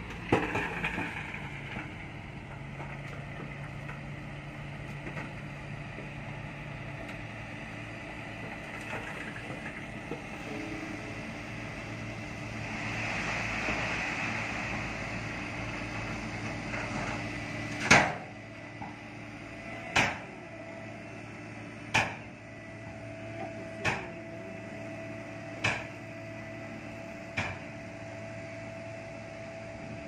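Heavy construction machinery running steadily while a tipped dump truck body empties its load of soil, with a swell of sliding dirt in the middle. Then six sharp bangs follow one another about two seconds apart.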